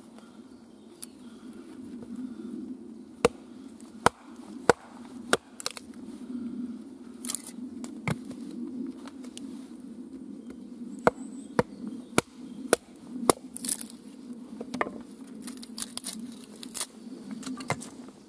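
Husqvarna hand axe splitting small pieces of wood on a chopping stump. The blade chops into the wood again and again with about a dozen sharp, irregularly spaced strikes, and the wood cracks as it splits.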